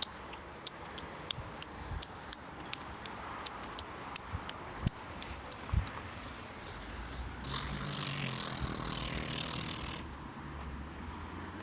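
School bus turn-signal flasher clicking steadily, about three clicks a second. About seven and a half seconds in, a loud hiss of released air from the bus's air brake system cuts in and stops suddenly about two and a half seconds later.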